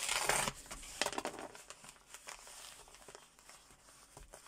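A knife slitting open a padded mailer: a loud tearing rasp in the first half-second and another about a second in, then fainter crinkling of the envelope's paper and bubble padding as it is pulled open by hand.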